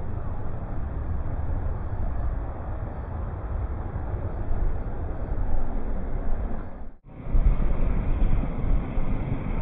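Two RC scale rock crawlers driving over rock, their motors and tyre noise slowed to half speed so the sound comes out as a low, muffled rumble. The sound briefly drops out about seven seconds in.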